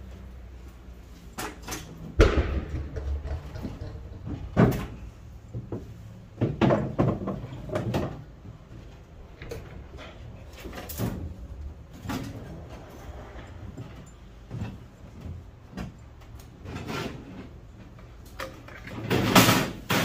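Irregular knocks, bangs and clatters of sheet-metal furnace cabinets being shifted around in a pickup truck bed. A sharp bang comes about two seconds in and a longer, loud clatter near the end.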